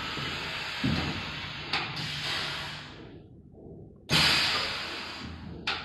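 Pneumatic hot press welding machine cycling: long hisses of air, each starting with a thud as a press head moves. The first hiss dies away by about three seconds in, a second starts with a loud thump about four seconds in, and another sharp knock comes near the end.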